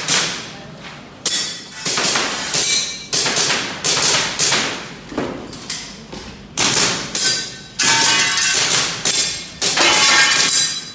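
A rapid series of sharp airsoft pistol shots and BB hits on targets, about one to two a second, each with a short ringing tail.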